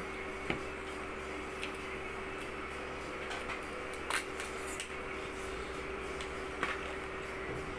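A few scattered sharp clicks and cracks as cooked crab and shrimp shells are broken and peeled by hand, over a steady low hum.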